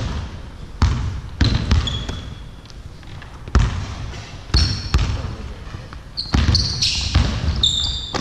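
Basketballs bouncing on a wooden hall court, irregular thuds that echo in the large hall. Short high sneaker squeaks join in over the second half.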